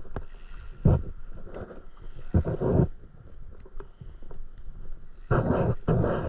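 Small waves lapping and slapping against a stand-up paddleboard in irregular bursts: a short one about a second in, a longer one around two and a half seconds, and the longest from about five seconds to near the end.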